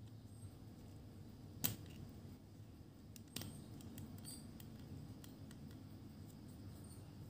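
Faint plastic handling sounds as a small plastic tennis racket is fitted into an anime figure's hand: one sharp plastic click about one and a half seconds in, a smaller click a couple of seconds later, and light ticks and rubbing in between.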